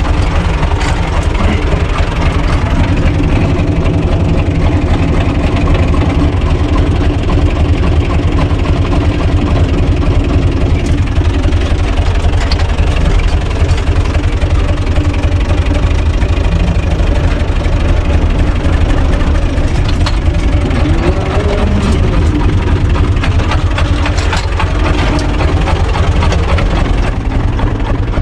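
Universal U445 DT tractor's diesel engine running steadily, heard from inside its cab as the tractor is manoeuvred, with one short rise and fall in engine note about three quarters of the way through.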